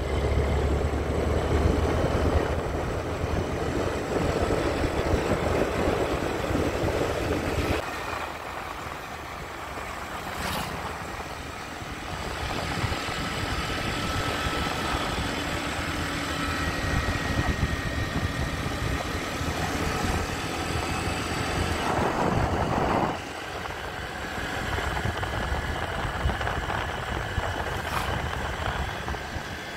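Motorbike on the move: the engine runs under a continuous rush of wind and road noise. The sound eases for a few seconds about eight seconds in and drops suddenly a little after twenty-three seconds.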